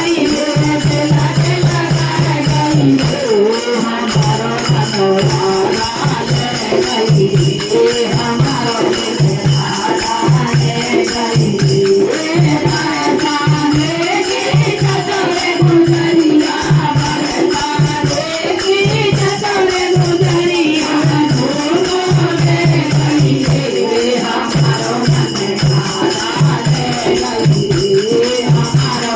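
Music: a voice sings a bending melody over a steady, pulsing low drum beat, with rattling percussion.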